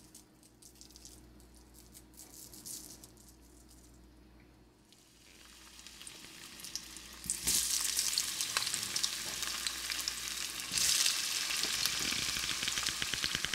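Potato pieces frying in hot grease in a skillet, sizzling and crackling. It starts as a faint crackle, then swells into a loud sizzle about six to eight seconds in as more pieces go into the pan, and grows louder again near eleven seconds.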